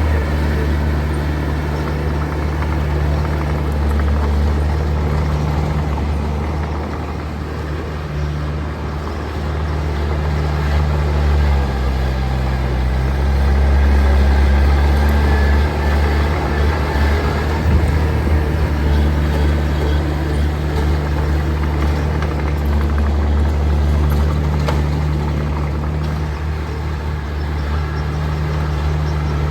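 Diesel engine of heavy earthmoving machinery running steadily. About twelve seconds in its pitch shifts and it grows louder for a few seconds before settling again.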